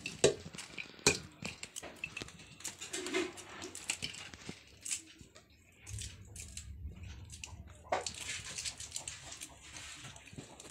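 Scattered light clicks and taps of hands peeling lychees and handling metal bowls, with a brief faint vocal sound about three seconds in.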